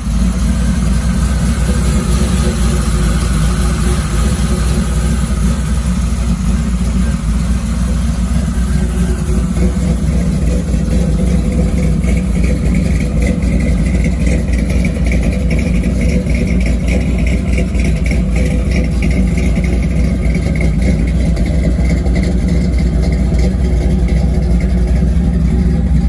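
A 1979 Chevy C10's V8 engine idling steadily, just after being started.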